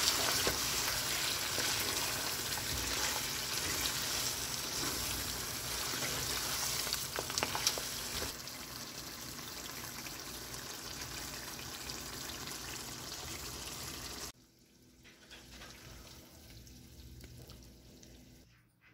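Mutton karahi sizzling in its wok-like pan while a spatula stirs it, with scraping clicks against the pan over the first half. The sizzle carries on steadily, then cuts off abruptly about 14 seconds in, leaving only faint sound.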